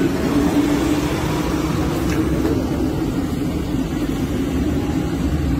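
A motor vehicle engine running steadily, heard as a continuous low drone with road noise.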